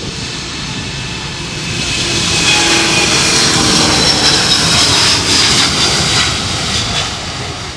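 Airbus A330-900neo's Rolls-Royce Trent 7000 turbofans at takeoff thrust, with a high whine over the roar. The noise swells to a peak about halfway through and fades as the jet goes past.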